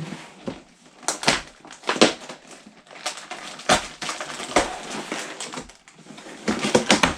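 Cardboard Lego set box being opened and handled by hand: irregular cracks, crinkles and rustles of cardboard and packaging.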